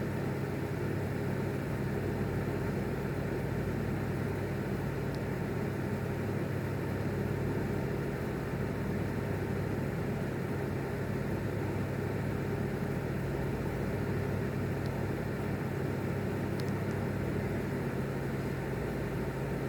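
Steady low mechanical hum, unchanging throughout, with no thunder claps.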